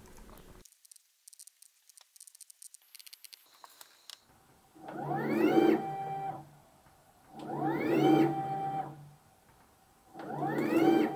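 New stepper motors on an EMCO PC Turn 50 CNC lathe driving its axes in three short jogged moves, after a few nearly silent seconds. Each move is a whine that rises in pitch as the motor speeds up, holds briefly, then stops. The running is rough because the stepper drivers are still set to full step.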